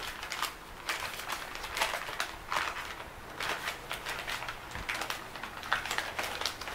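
Old newspaper crinkling and rustling in irregular bursts as small glasses are unwrapped from it by hand.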